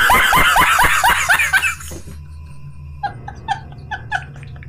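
A man laughing hard in loud, rapid bursts that trail off after about two seconds, then breaking into quieter, high-pitched, squeaky laughing bursts from about three seconds in.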